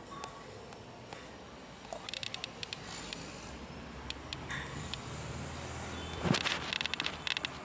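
Samsung Galaxy Tab A7 Lite alarm tone playing: clusters of jingling, clinking clicks about two seconds in and again near the end, with a quick falling swoop just before the second cluster.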